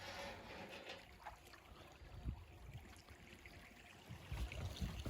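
Faint flowing river water trickling past the boat, with a few low thumps near the end.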